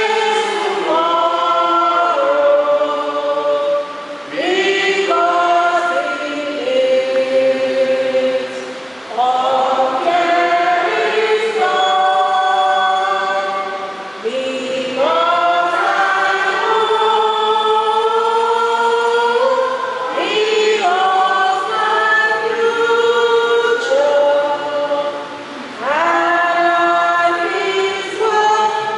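A choir singing, unaccompanied, in long held phrases that break off briefly about every five seconds.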